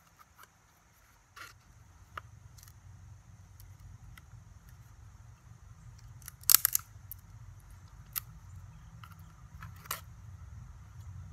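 Handling of a saw and a cedar stick: a few scattered sharp clicks and knocks, the loudest a short cluster about six and a half seconds in, over a faint low rumble.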